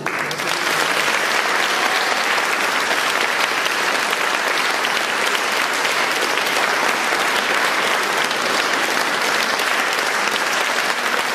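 Concert audience applauding steadily, dense even clapping that follows straight on from the end of a song.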